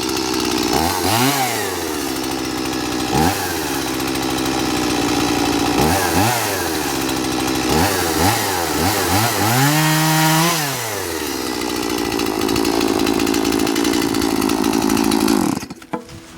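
Two-stroke chainsaw revving up and dropping back several times, then held at high revs, as if cutting, before it cuts off abruptly near the end.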